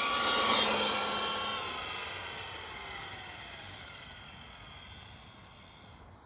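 HG P601 6x6 RC truck's electric motor and gears whining at full speed as it passes close, loudest about half a second in. The pitch then drops as it runs away, and the sound fades steadily.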